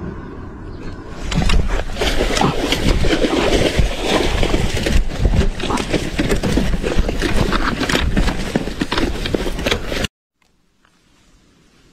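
A hooked fish thrashing and being hauled out of the water through wet grass: loud, dense splashing, rustling and scraping crackle, which cuts off suddenly about ten seconds in, leaving only faint outdoor sound.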